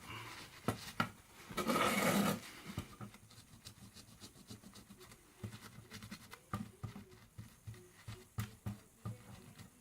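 Paper rubbing and scratching over a graphics card's chip as old thermal paste is wiped off, with a louder rustle of paper about two seconds in and light clicks and taps of handling.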